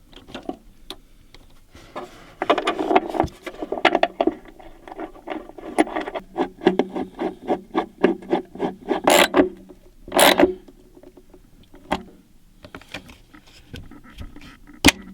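Ratchet with a 12 mm socket tightening the battery retaining clip bolt: runs of quick clicking, with a couple of louder metallic knocks about two-thirds of the way through.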